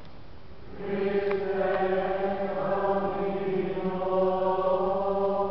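A group of voices chanting a hymn in unison in long held notes, swelling louder about a second in.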